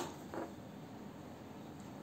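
Quiet room noise with one short, faint knock about a third of a second in, from the small plastic wireless mouse being handled and turned over.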